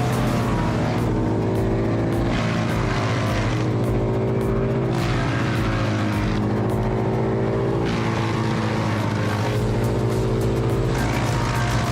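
Heavy machine's engine running steadily under load, a deep drone with many overtones, while a rushing hiss swells and fades every two to three seconds.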